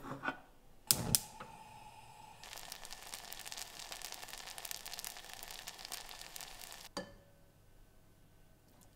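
Two sharp knocks about a second in, with a brief ring after them, then baked beans bubbling and spitting in a saucepan on the stove, a dense crackle that cuts off suddenly near the end.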